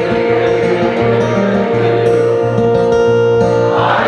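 Acoustic guitar strummed and picked in a steady rhythm, with repeated bass notes, between sung lines of a folk song. Near the end a crowd of voices swells in over the guitar.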